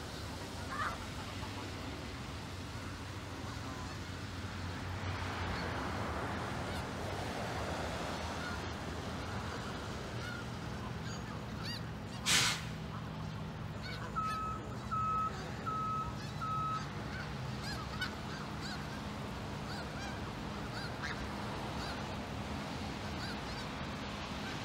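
A flock of snow geese honking here and there over a steady background hiss. About halfway through comes a brief loud rush of noise, followed by four short, evenly spaced beeps.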